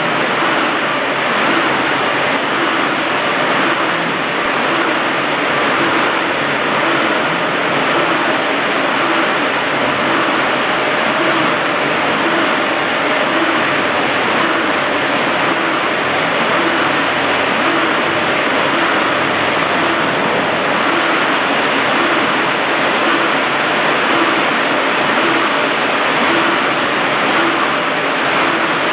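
Automatic wire-mesh welding line running: a steady, loud machine-hall noise with a faint regular beat from the line's repeating cycle.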